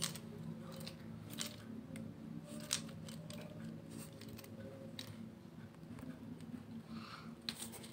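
Faint, scattered clicks and taps of wooden beads being slid along a wire and handled, over a steady low hum.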